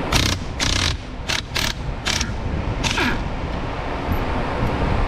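Ratchet wrench on the steering wheel's centre nut, ratcheting in about six quick bursts in the first three seconds as it is worked back and forth, over a steady low background rumble.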